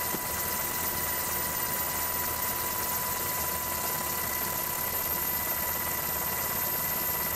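Steady engine and airflow noise from the aircraft carrying the camera, an even rush that does not change, with a thin steady whine.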